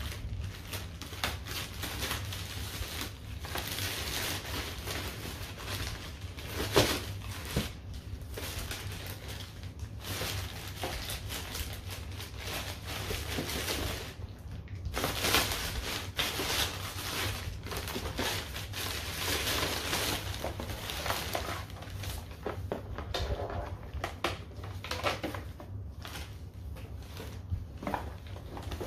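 Black plastic mailer bag crinkling and rustling as it is torn open and handled, with a louder sharp crackle about seven seconds in.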